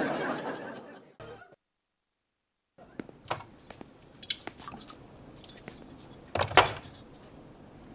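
Studio audience laughter fades out, followed by a moment of total silence. Then come scattered faint clinks and clicks of glass soda bottles and their caps being handled, with a louder knock about six and a half seconds in.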